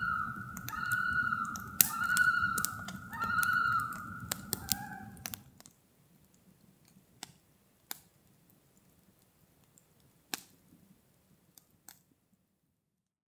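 A common loon calling across the lake: about five repeated yodel phrases, roughly one a second, the last one breaking to a lower note. Underneath are campfire crackles and a low rumble. After about five and a half seconds the rumble stops and only the fire's sparse crackles and pops go on.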